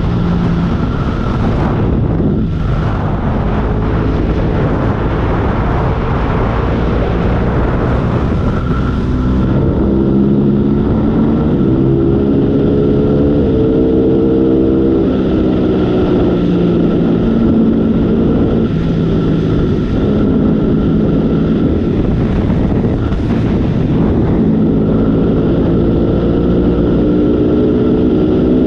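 Motorcycle engine running under way, its pitch climbing and dropping several times as the revs change, with wind rushing over the microphone.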